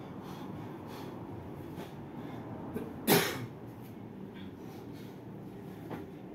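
A kettlebell lifter's breathing under the effort of one-arm long cycle: a single loud, sharp burst of breath like a cough about three seconds in, over a steady background hiss.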